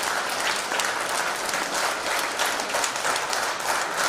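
Audience applauding: many people clapping at once, an even, steady patter.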